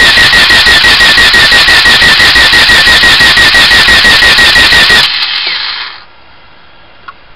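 1992 Honda Accord four-cylinder engine being cranked over by the starter for a compression test: a loud starter whine with a rapid, even pulsing of the compression strokes, which cuts off about five seconds in and spins down over the next second. The cylinders read only about 60–70 psi, which the owner puts down to a bad block and worn rings.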